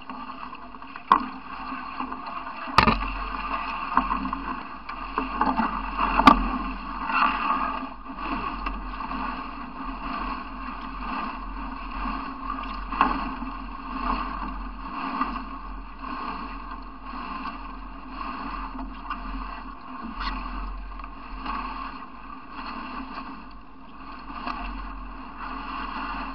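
Solo racing canoe being paddled through dense reeds and brush: stems brushing and scraping along the hull with water sloshing, broken by a few sharp knocks, the loudest about 3 and 6 seconds in.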